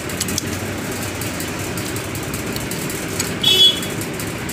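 Light clicks of steel gearbox parts being handled as a gear shift fork is fitted onto the shift drum of a motorcycle crankcase, over a steady low background hum. A brief, high ringing note sounds about three and a half seconds in.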